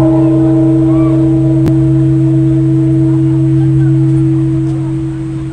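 Clock tower chime sounding one deep, ringing bell-like tone that starts suddenly and holds, easing off near the end: the opening of the daily 5:18 pm chime.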